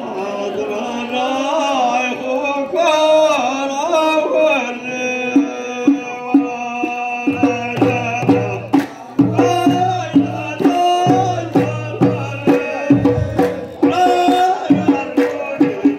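Singing in long, wavering lines with hand drums. The drum beats come in about five seconds in and keep a steady rhythm of roughly two strokes a second, with deep thumps under them.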